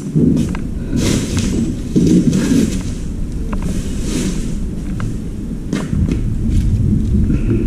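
Low rumbling camera-handling noise with scattered knocks, clicks and a few brief scrapes on a concrete floor, as clutter is moved about.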